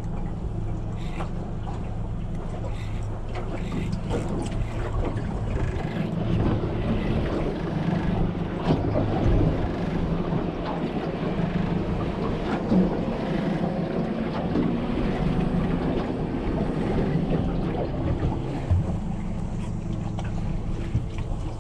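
A small boat's engine running with a steady low hum, with wind buffeting the microphone and irregular knocks and splashes around the middle.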